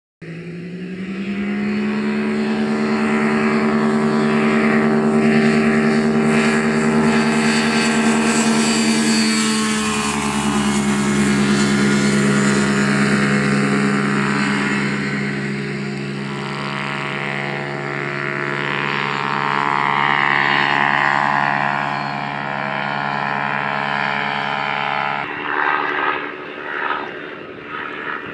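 Ultralight aircraft engine and propeller droning steadily in flight overhead. The engine note climbs over the first two seconds and drops slightly about ten seconds in.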